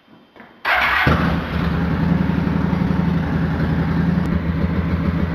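A 2003 Honda VT750 ACE's liquid-cooled V-twin starting on the button: the starter engages suddenly and the engine catches within about half a second, then settles into a steady idle. It is being run so the water pump circulates the freshly added coolant.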